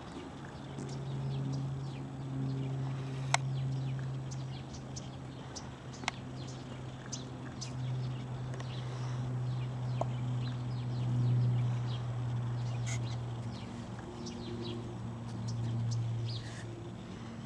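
A motor runs with a steady low hum that swells and fades every few seconds. Faint bird chirps and ticks are scattered over it.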